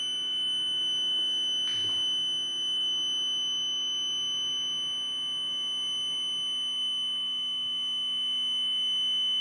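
Steady high-pitched alarm tone from the replacement BMS on a Begode Master battery pack, sounding while its cell leads are being soldered on; it gets louder with each added connection. A faint tap about two seconds in.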